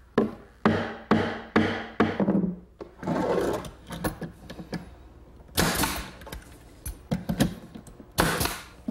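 Hammer tapping a plywood partition down into its dados, about five blows in the first two seconds. Then a pneumatic brad nailer fires twice, a few seconds apart, driving brads into the plywood.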